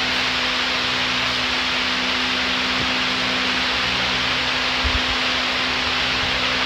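Large wall-mounted electric fan running: a steady rushing noise with a constant low motor hum. A soft low thump about five seconds in.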